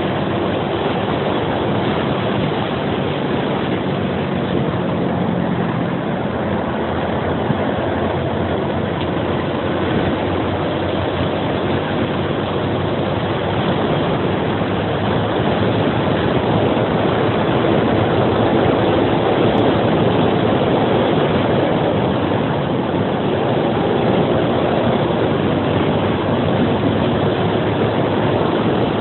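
Suzuki Axelo 125 motorcycle underway, its small single-cylinder four-stroke engine running at steady throttle under heavy wind and road rush on the on-bike microphone. The noise grows a little louder about halfway through.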